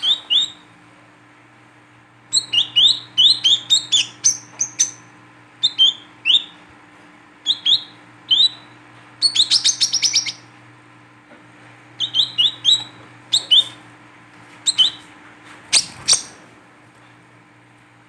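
Female brown-throated sunbird calling: short, sharp chirps that sweep quickly downward, given singly and in quick bursts, with a fast chittering run about nine seconds in.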